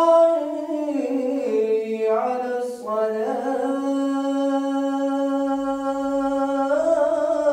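A muezzin's unaccompanied voice chanting the Islamic call to prayer (adhan). The line moves through several pitches in the first three seconds, then settles on one long held note and rises again near the end.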